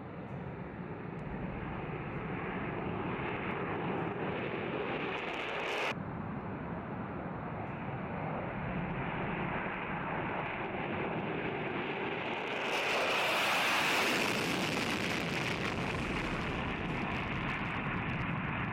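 Jet aircraft engine noise, a steady rushing drone that breaks off abruptly about six seconds in and resumes. From about thirteen seconds in it grows louder and brighter until it stops suddenly.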